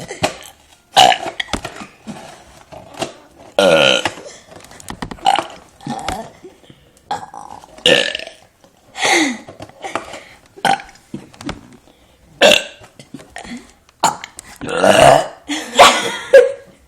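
Deliberate, forced burps in a rapid series, about one a second, some drawn out with a gliding pitch.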